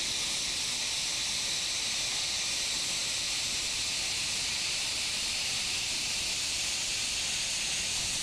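CUT50 plasma cutter slicing through 18-gauge steel sheet: the steady, unbroken hiss of the air-plasma arc.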